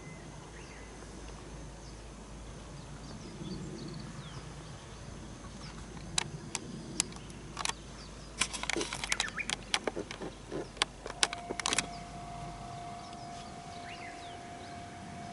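Outdoor ambience with faint bird chirps. In the middle comes a quick, irregular run of sharp clicks, the loudest sounds here. Then a steady single tone comes in and holds.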